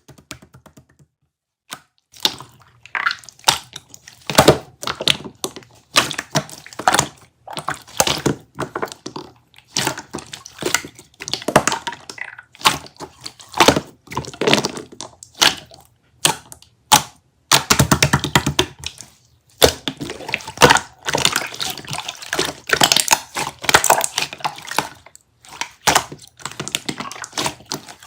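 Purple grape jelly being squished and pressed up close: irregular runs of wet crackling, squelching and popping, with short pauses between them.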